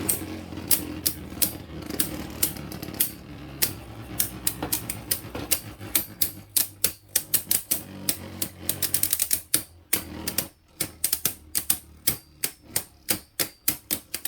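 Two Beyblade Burst spinning tops, King Helios and Glide Ragnarok, battling in a plastic stadium: many sharp irregular clicks as they hit each other, some in quick rattling runs, over a low spinning whir that fades during the first few seconds.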